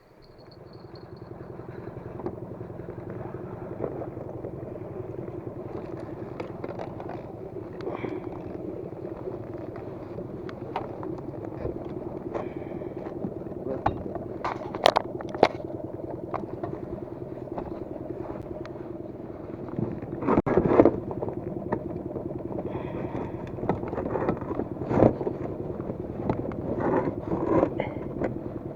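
A motor running steadily, swelling in over the first couple of seconds and then holding an even pitch, with scattered knocks and clicks over it.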